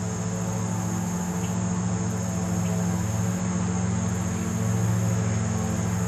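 Steady high-pitched insect chirring over a low, steady engine-like drone.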